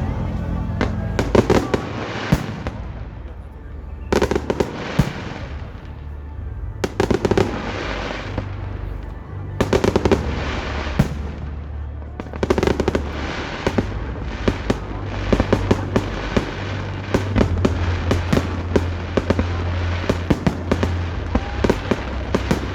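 Fireworks bursting and crackling in repeated volleys, a shell every two to three seconds at first, then a dense, almost continuous crackle from about the middle on.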